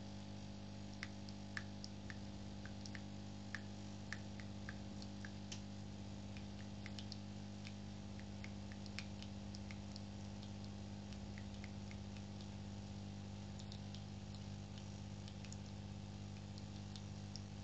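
Philips automatic espresso machine running mid-brew with a steady low hum, with scattered faint ticks throughout.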